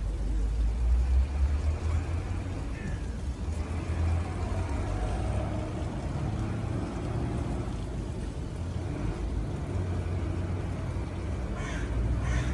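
Steady low background rumble. Near the end a crow starts cawing in short calls that follow each other quickly.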